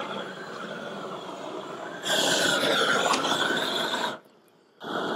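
Propane roofing torch burning with a steady hiss, turned up louder about two seconds in, as it heats a modified-bitumen flashing sheet to weld it down. The sound drops out briefly near four seconds, then the torch runs loud again.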